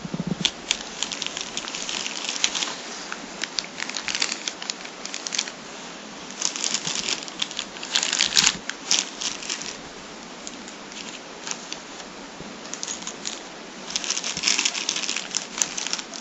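Clear plastic packaging bags crinkling as they are handled, in irregular bursts of crackles with a quieter stretch a little past the middle.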